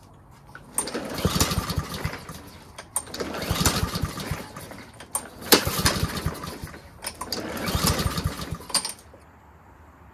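Honda engine of a Troy-Bilt TB240 lawn mower pull-started four times in a row. Each pull turns it over for a second or so, and it does not keep running. The engine still stalls after its carburetor was cleaned.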